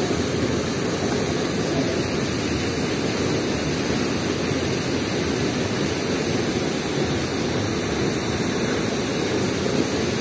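Steady rushing roar of river water pouring through a weir's sluice gates, an even noise that does not let up.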